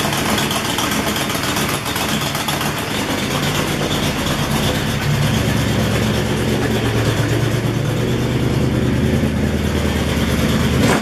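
Supercharged LT1 5.7-litre V8 idling steadily through a loosely mounted exhaust, the low rumble growing fuller about halfway through. It runs with a leaky EGR, which the owner takes for part of how it sounds through the exhaust.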